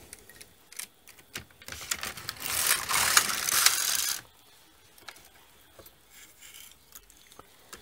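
One pass of an LK150 knitting machine carriage across the needle bed, about two and a half seconds of mechanical clatter that stops abruptly. Before and after it come light clicks of needles being set by hand.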